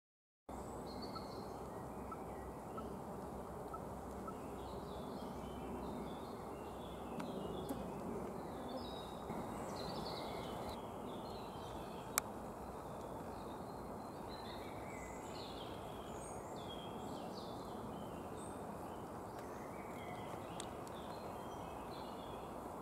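Woodland ambience that begins abruptly about half a second in: a steady low rush of background noise with small birds giving short high chirps and calls on and off. One sharp click about halfway through.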